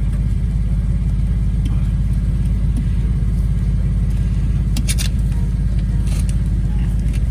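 A steady low mechanical drone from a running motor, with a few short sharp clicks about five and six seconds in.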